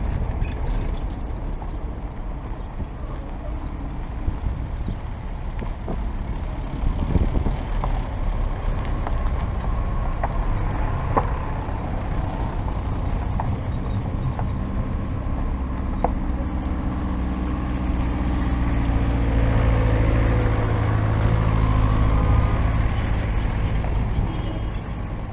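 Road traffic on a gravel road: vehicle engines passing, with a few light knocks. From about 18 s a diesel engine runs close by and grows louder, holding a steady hum.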